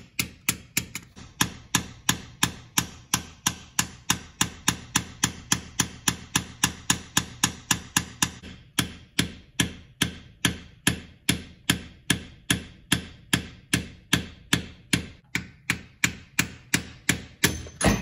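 Hammer tapping steadily on a screwdriver set on a push rod, about two to three light taps a second, with one harder strike at the very end. The taps are meant to free a collapsed hydraulic lifter in a Chevrolet 5.3 V8.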